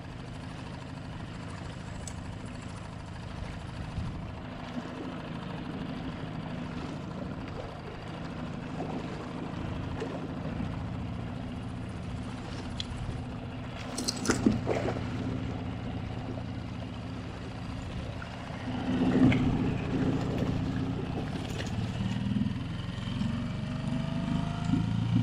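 Small Honda four-stroke outboard motor running steadily at low, trolling speed. Two brief louder noises break over the hum, one about halfway through and a louder one later.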